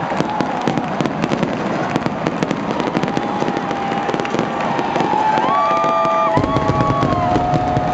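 Stadium fireworks crackling and popping in a dense, continuous stream over a loud cheering crowd. Several steady whistling tones sound over it from about three seconds in, and a deeper rumble joins near the end.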